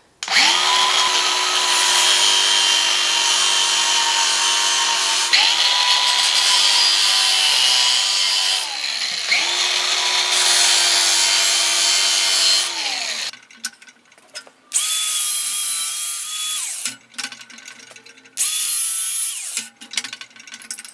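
Angle grinder scoring a steel bar: the motor whines over a loud grinding hiss in three long runs, its pitch sagging and gliding down between them. After about 13 seconds come several shorter bursts, each a second or two long.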